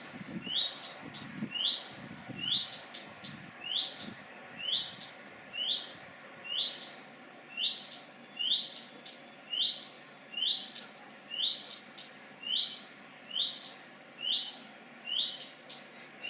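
Redstart fledgling repeating one short, rising whistle over and over, a little more than once a second, the same note every time.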